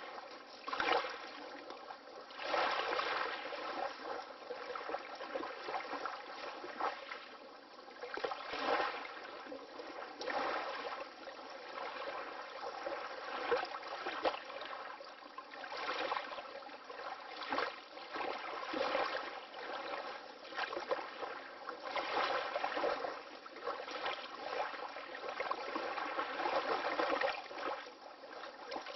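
Water lapping gently, in continuous irregular swells a second or two apart, with no deep rumble.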